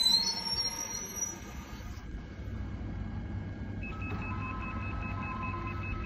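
GYSEV Ventus electric train squealing high as it comes to a stop. About four seconds in, a rapid repeated beep starts: the door-opening signal.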